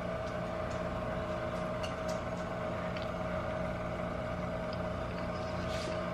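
Steady mechanical hum with a constant tone, the sound of a running kitchen appliance, with a few faint light clicks of cutlery on a plate.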